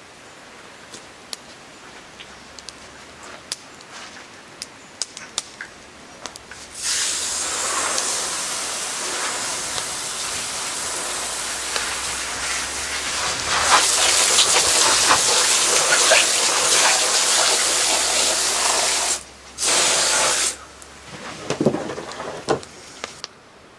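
Water spraying steadily onto fish in a plastic tub and the wet wooden table, as they are rinsed. The hiss starts about seven seconds in, gets louder about halfway, cuts off, sprays once more for about a second, then stops. A few faint clicks and taps come before and after it.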